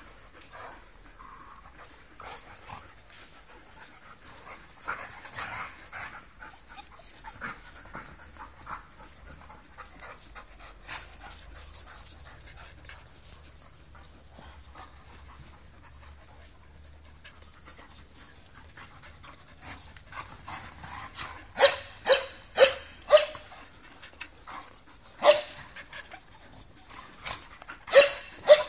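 Dogs playing together, panting and scuffling on sand. Then come sharp play barks: four in quick succession about two-thirds of the way through, and a few more near the end.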